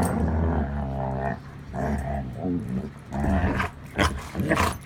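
Chocolate Labrador growling while play-wrestling: long, low growls in the first half, then shorter, harsher bursts toward the end.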